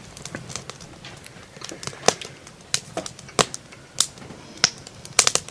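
Wood fire crackling in a woodstove: irregular sharp pops and snaps, a few each second, with louder ones about two, three and a half, four and five seconds in.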